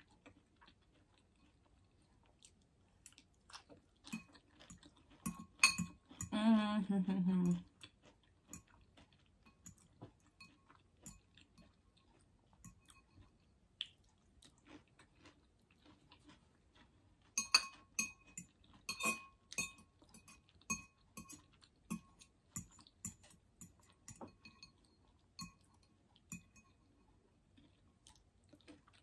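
Metal fork clinking and scraping against a glass bowl while scooping salad, with soft close-up chewing. The clinks ring briefly and come thickest about two-thirds of the way through. There is a short hum about seven seconds in.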